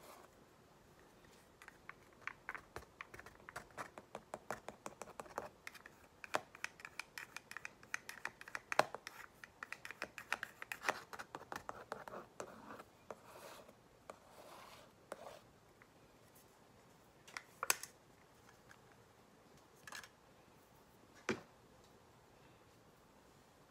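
A paintbrush tapped again and again to flick acrylic paint spatter onto the canvas. Quick sharp ticks come several a second for about ten seconds, then a few single taps near the end.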